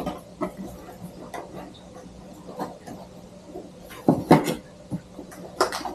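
Small cardboard camera box being handled and opened: the lid flap and inner packaging scraping and tapping in short clicks and rustles, with a louder cluster of knocks about four seconds in and again near the end.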